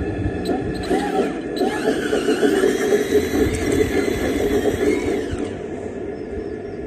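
Motors of a 1/8-scale D65 model bulldozer whining, their pitch rising and falling in quick arcs and then in longer sweeps, over a steady rattling rumble; the whining fades out about five and a half seconds in.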